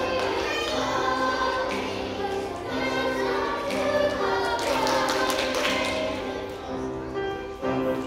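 A children's choir singing a song in long held notes.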